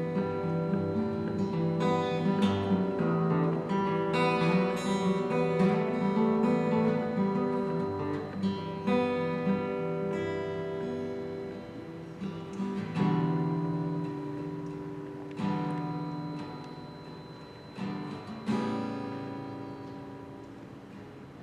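Acoustic guitar played solo without singing, strummed and picked chords. In the second half single chords are struck every two or three seconds and left to ring and fade.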